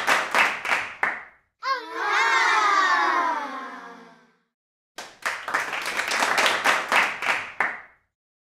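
Chef's knife chopping rapidly on a wooden cutting board, mincing garlic, in two bursts: one stopping about a second in, the other from about five to eight seconds in. Between them comes a loud, wavering tone of a couple of seconds that slides down in pitch.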